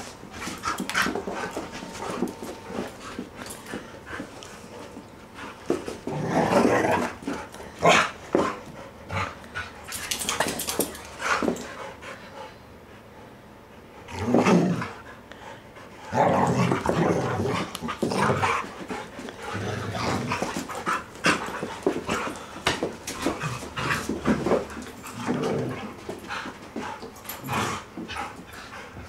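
Two dogs, a Norwegian Elkhound and a setter–Vizsla mix, play-fighting, with growls and barks coming in irregular bursts and quieter stretches between.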